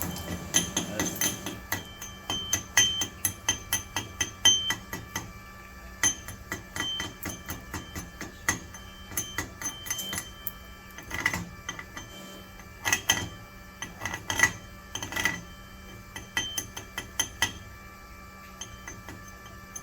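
Hammer striking a steel weld test plate: irregular sharp metallic taps and clinks, several a second with short pauses, each ringing briefly.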